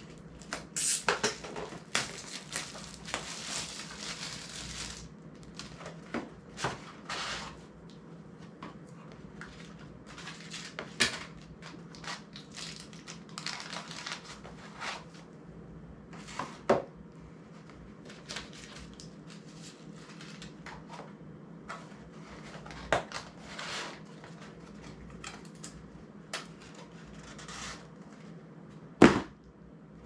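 Small product boxes and parts being handled on a tabletop: irregular clicks, taps and rustling of packaging, with one sharp, louder click near the end.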